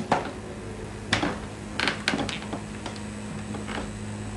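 A few scattered light clicks and knocks, several bunched about two seconds in, over a steady low electrical hum.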